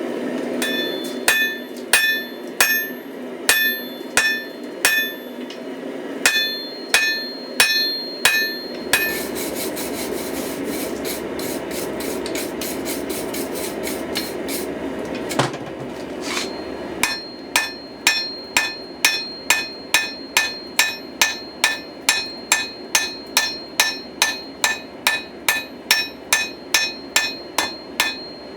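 Hammer blows on a hot Damascus steel billet at the anvil, setting the forge weld and drawing it out. About two blows a second with a bright ring at first; about nine seconds in, a rapid run of many quicker blows for several seconds, then steady blows about two and a half a second. A steady rushing noise runs underneath.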